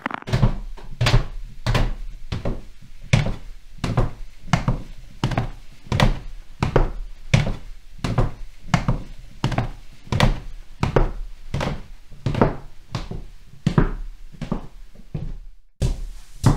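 Footsteps climbing stairs indoors: a steady series of thudding steps, about two a second. Near the end there is a brief silent break, then a second run of stair footsteps begins.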